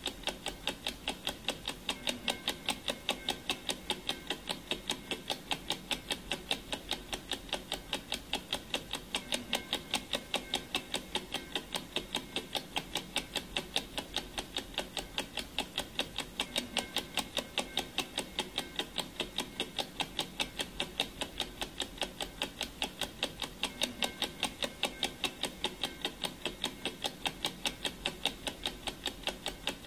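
Clock ticking sound effect for a countdown timer: a steady run of quick, even ticks that does not let up.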